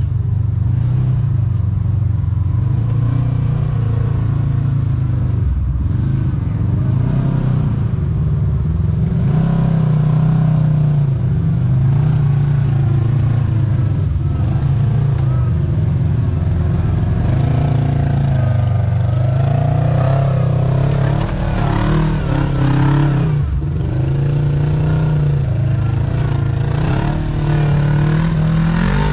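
Side-by-side UTV engine running hard, revving up and down again and again.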